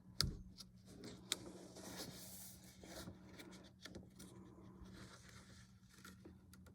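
Paper pages of an old, falling-apart booklet being handled and turned: a few sharp crinkling clicks near the start and about a second in, then soft rustling, over a faint steady hum.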